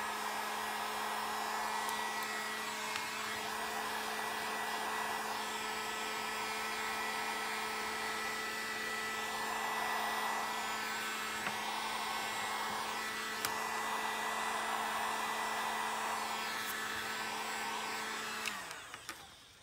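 Harbor Freight heat gun running, its fan blowing hot air with a steady hum. Near the end it is switched off and the motor winds down, the hum falling in pitch.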